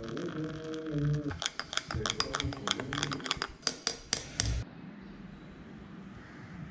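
Liquid poured into a glass of coffee with a steady pitched gurgle. Then a metal utensil clinks rapidly and irregularly against the glass as it is stirred, stopping abruptly about four and a half seconds in.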